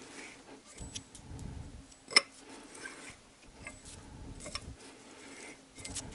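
Faint, irregular clicks and ticks of a hand tap being turned in an aluminium cylinder head as it cuts a larger spark-plug thread. There is one sharper click about two seconds in.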